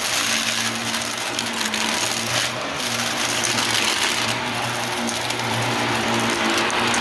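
Shark Navigator Lift-Away Deluxe upright vacuum running over a rug: a steady motor whir and suction hiss, with a fast crackle of small clicks throughout.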